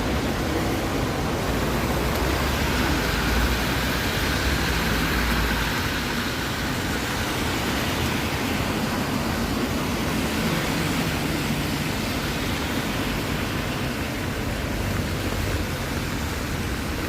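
Steady city street noise with traffic going by; a deep rumble drops away about six seconds in.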